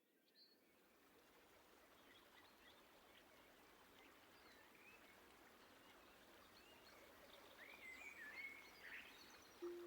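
Honor 9S nature-sounds ringtone: a faint outdoor ambience fading in and slowly growing, with bird chirps that come thicker about three quarters of the way through.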